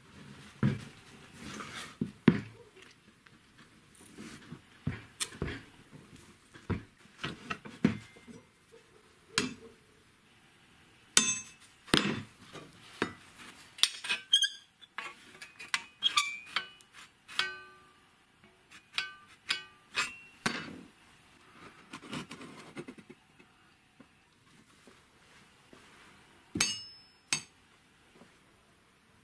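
Steel bar stock and the parts of a hand-operated bar bender knocking and clinking as the bar is bent and handled: irregular separate knocks, with several short metallic rings in the middle stretch and a loud pair of clanks near the end.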